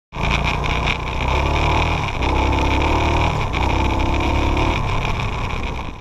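Small off-road vehicle engine running under throttle, heard from onboard, its revs dropping and climbing again several times.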